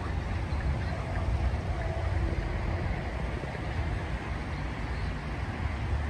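Steady splashing hiss of a pond fountain's spray falling back onto the water, with a constant low rumble underneath.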